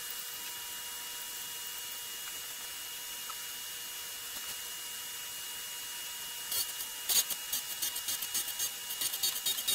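Central Machinery 6x12 surface grinder's spindle running with a steady whine. About six and a half seconds in, the wheel starts cutting a block of 1018 steel, adding a rapid, irregular crackling grind.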